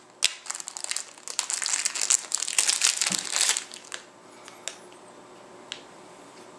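Packaging crinkling and rustling as it is handled, for about three and a half seconds, followed by two light clicks.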